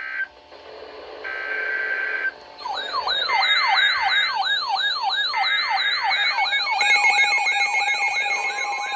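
Emergency alert tones for a tornado warning: short steady beeps, then from about three seconds in a loud, fast warbling tone sweeping up and down about three times a second, joined near the end by a steady alert tone.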